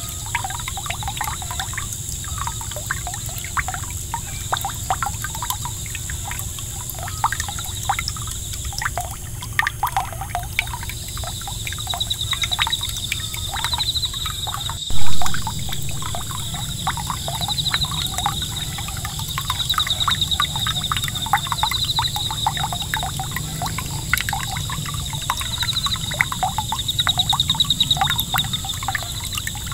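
Small 5 V solar fountain pump's jet of water splashing back onto a pond surface: a steady patter and trickle of droplets. A brief loud knock about halfway through.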